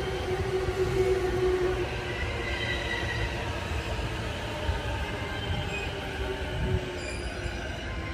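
Keihin-Tohoku Line E233-series electric train running past on the adjacent track: a steady low rumble with high whining tones from its wheels and motors.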